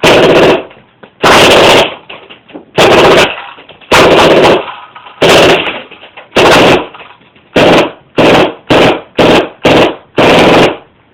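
Tactical Force TF-11 CO2 blowback airsoft submachine gun firing on full auto in about a dozen short bursts, the first several about half a second long and the later ones shorter and closer together. The rate is real fast, high 20s, almost 30 rounds a second.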